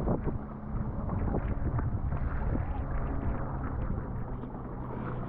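Wind buffeting the microphone over open water, with the splash and swish of paddle strokes from an inflatable kayak being paddled.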